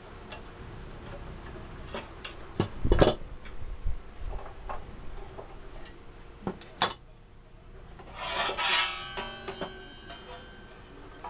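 Metalworking at a clamped sheet-metal bender while a steel battery tray gets its final bend: C-clamps are worked, and there are several sharp metallic knocks and clanks, the heaviest about three seconds in. Near the end comes a loud metal scrape, followed by brief ringing from the sheet steel.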